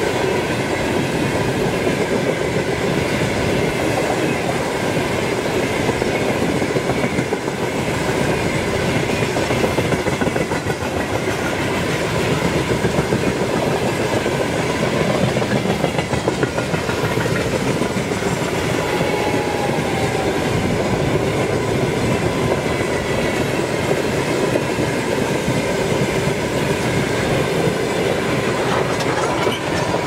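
Freight train behind a 2ES10 'Granit' electric locomotive rolling past, its wagon wheels clattering steadily over the rail joints in a continuous loud rumble.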